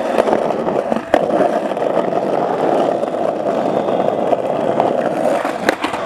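Skateboard wheels rolling over concrete and cracked asphalt, a steady rumble with a sharp clack about a second in and another near the end as the wheels hit seams or cracks.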